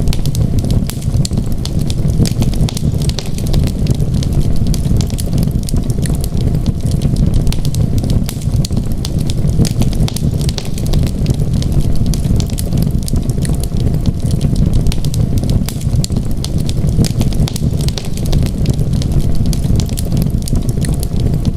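Wood fire burning with a dense, steady low rumble of flames and many small, sharp crackles and pops scattered throughout.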